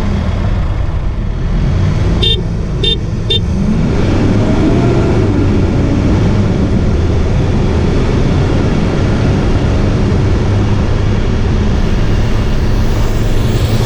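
Three short car-horn toots about two seconds in, over the steady low rumble of a 4x4 ute's engine. The engine then revs up, its pitch rising and wavering as it drives hard up a sand hill.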